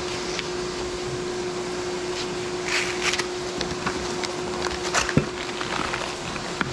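Cardboard packaging being handled and pulled open, with scattered sharp crackles and clicks, the loudest about five seconds in, over a steady machine hum in the shop.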